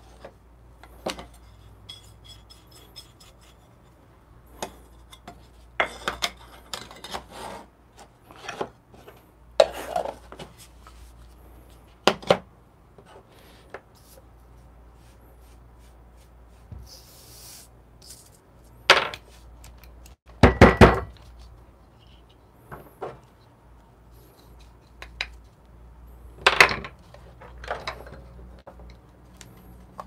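Scattered taps, knocks and light clinks of coffee gear being handled: a coffee sifter being tapped and set down, and a wooden-handled brush sweeping grounds. A quick run of knocks about twenty seconds in is the loudest. No grinder motor is running.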